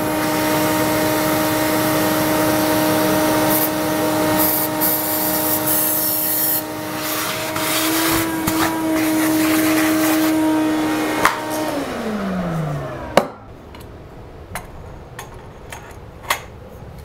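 Vacuum running with its nozzle held against freshly drilled holes in a concrete wall, clearing out the drilling dust: a steady motor whine under a rushing of air, its pitch rising slightly about eight seconds in. About twelve seconds in it is switched off, and the motor winds down in a falling whine, followed by a knock and a few light clicks.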